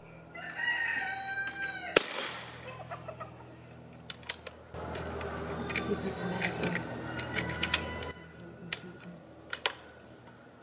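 A single sharp report from a .25 caliber Air Venturi Avenger PCP air rifle about two seconds in. Light metallic clicks follow as the rifle's side lever is worked to load the next pellet.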